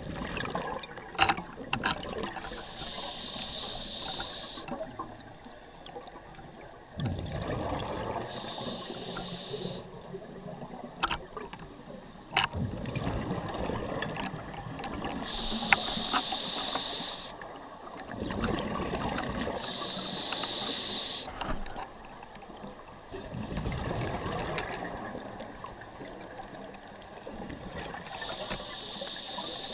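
Scuba diver breathing through a regulator underwater: a hiss on each inhalation, then a bubbling burst of exhaled air, repeating every several seconds, with a few sharp clicks.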